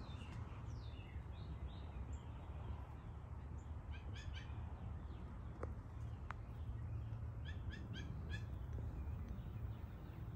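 Birds calling: two short runs of quick repeated chirps, about four notes and then about five notes a few seconds apart, with fainter chirps before them, over a steady low rumble.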